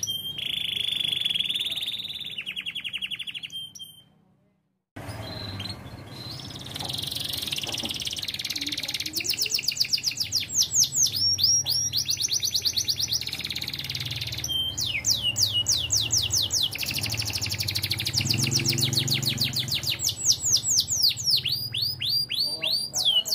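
Domestic canary singing long, rapid trills of repeated high, bell-like 'ting ting' notes. The song breaks off into silence for about a second around four seconds in, then carries on.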